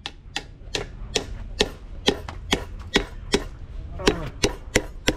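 Hammer striking metal in a steady rhythm, a little under three blows a second, each blow leaving a short metallic ring.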